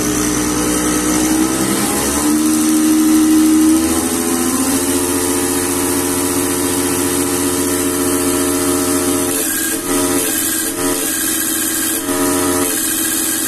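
Genco diesel pump test bench running a VE rotary injection pump through its drive coupling: a steady mechanical whine. Its speed shifts during the first few seconds and then holds steady, with a few brief dips near the end.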